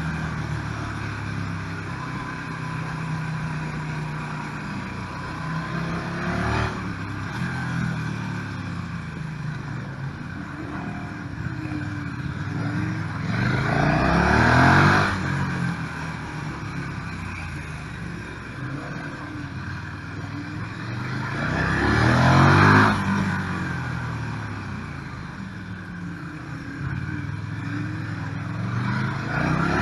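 KTM 1290 Super Duke R's V-twin engine heard from the rider's seat, pulling hard through the revs three times, each run rising to a loud peak, with quieter stretches between them where it runs lower and off the throttle. A smaller rise in revs comes a few seconds in.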